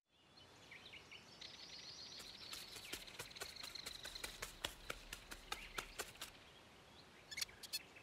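Soft woodland ambience fading in, with high bird chirps and scattered light ticks and taps that come more often near the end.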